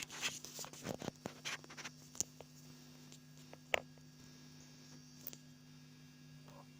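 Steady hum from an electric guitar rig running through a Vox Tonelab amp modeller, with a flurry of faint clicks and scratches in the first couple of seconds and a few single sharp clicks after, as the guitar is handled before playing.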